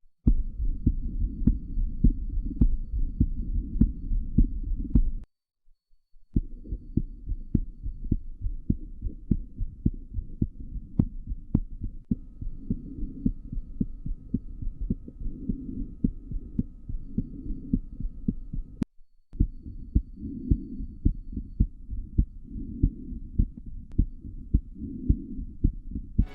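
Stethoscope recordings of a child's heartbeat: regular, low-pitched beats in three stretches, with a break of about a second near five seconds in and a brief break near nineteen seconds.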